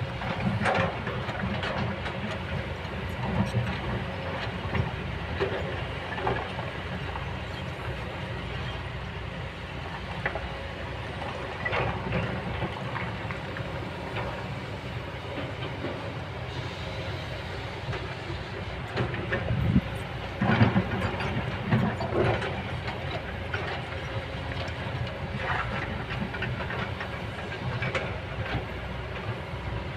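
Kobelco hydraulic excavator's diesel engine running steadily under work, with irregular metallic clanks and knocks from the machine, loudest in a cluster about two-thirds of the way through.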